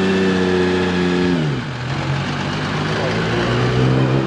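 Singer DLS Porsche 911's air-cooled flat-six engine pulling away: it holds steady revs, the revs fall about a second and a half in, and it settles into a steady lower note as the car drives off.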